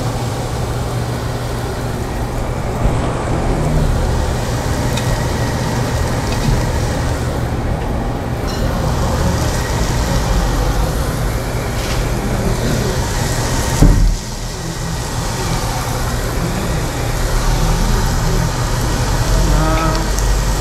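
Meat sizzling on a tabletop Korean barbecue grill over a steady low hum and hiss. A sharp clack comes about 14 seconds in.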